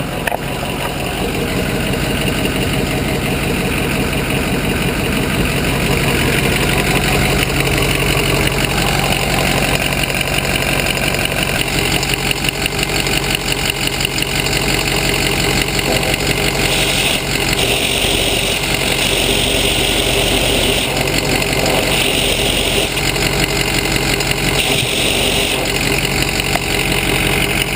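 Ford Power Stroke diesel idling, heard through a vacuum hose run along the exhaust as a steady rushing air noise. In the second half a loud hiss comes and goes several times as the hose passes the exhaust leak at the right-hand inlet pipe to Y-pipe flex joint.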